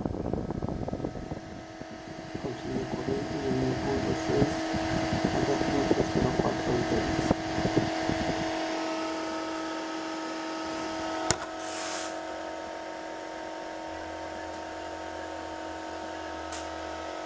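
Running TV transmitter with its cooling fan giving a steady hum made of a few even tones. Irregular low rumbling from camera handling covers the first eight seconds, and there is a sharp click about eleven seconds in.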